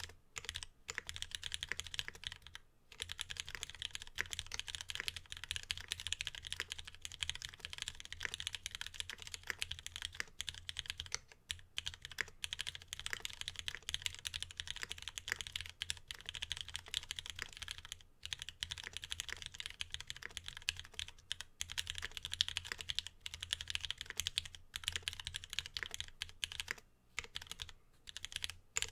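Steady, fast typing on a Geon Works F1-8X mechanical keyboard: lubed Cherry Retooled Black linear switches in an aluminium plate, with ABS keycaps, clacking in a dense run broken by a few brief pauses.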